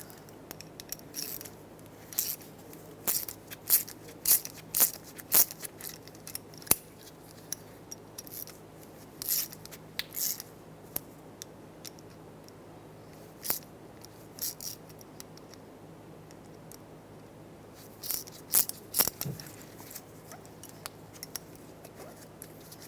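Scattered metallic clicks and taps of hand tools, coming in short clusters with pauses between, as a 10 mm wrench and an E5 inverted Torx socket drive a second seized stud out through its nut.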